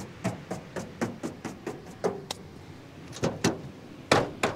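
Rapid sharp knocks, about four a second, then a few heavier clunks, the loudest just before the end: sand being knocked off and a Nissan Navara ute canopy being opened.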